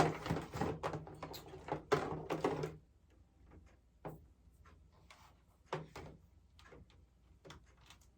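Parts of a ring light being handled and unscrewed: a busy stretch of rattling and scraping, then scattered single clicks and knocks.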